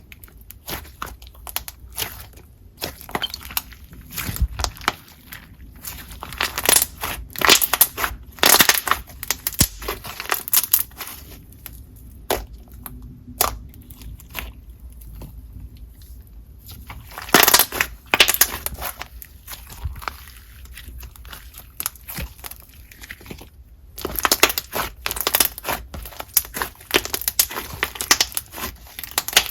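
A glue-based slime being squished and mixed with a clay cookie infused with snow fizz, giving dense crackling and crunching pops, with quieter stretches between bursts.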